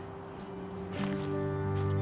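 Background music comes in about a second in: sustained held chords that grow louder.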